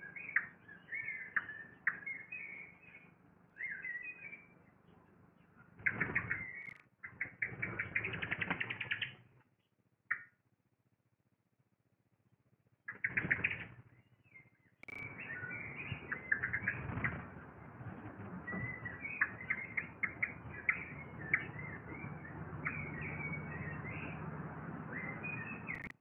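Eurasian blackbird nestlings begging with many short, high cheeps, in places a fast run of them, mixed with rustling and wing flutters in the nest. The cheeping breaks off for a few seconds in the middle, over a low steady hum.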